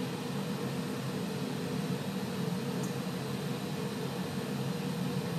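Glassblower's bench burner flame burning with a steady, even rushing noise as glass is heated in it.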